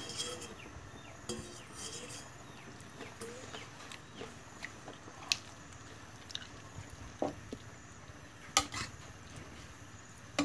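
A ladle stirring sliced bamboo shoots through broth in a metal pot. It makes scattered clinks and knocks against the pot, with the sharpest knock late on.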